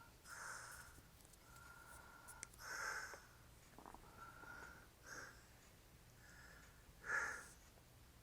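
A man snoring while passed out drunk: four loud snoring breaths about two seconds apart, with a thin whistling tone between them.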